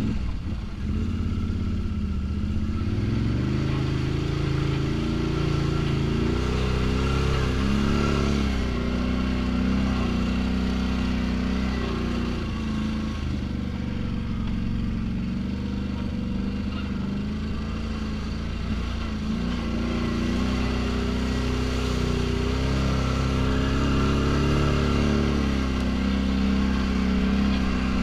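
ATV engine running while the quad rides along a trail, its pitch rising as it speeds up about three seconds in and again near twenty seconds, with dips and shifts in between as the throttle changes.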